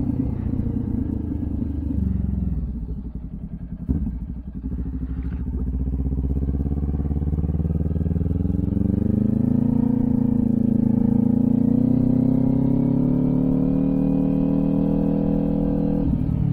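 Kawasaki Ninja 400's parallel-twin engine and exhaust at low riding speed, the revs falling away about two seconds in, then picking up again and pulling steadily from about eight seconds. A single sharp click about four seconds in.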